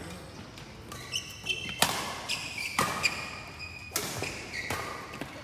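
Badminton rally: rackets striking the shuttlecock with a sharp crack roughly once a second, between them the short squeaks of shoes on the court floor.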